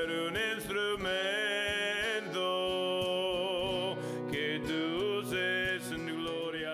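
Spanish-language worship song: a singer holds long, wavering notes over instrumental accompaniment.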